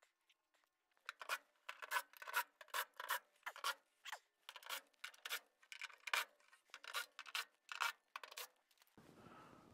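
Rhythmic hand-scraping strokes on a hard surface, about two to three a second, starting about a second in and stopping near the end.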